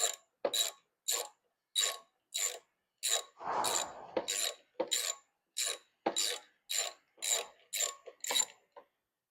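Socket ratchet with an 8 mm socket clicking in short back-and-forth strokes, about two a second, backing out the air filter housing bolts on a Briggs & Stratton mower engine. There is one longer, rougher stroke about three and a half seconds in, and the ratcheting stops shortly before the end.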